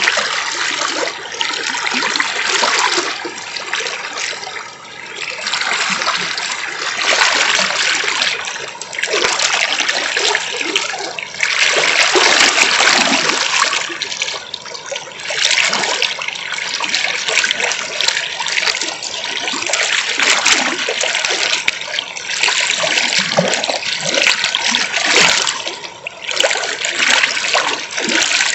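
River water rushing and splashing over its bed, a continuous noise that swells and eases every few seconds.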